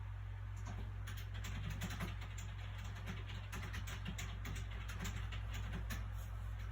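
Soft paper sounds from a book being handled: a dense run of quick, crisp rustles and ticks that starts about half a second in, over a steady low hum of background noise.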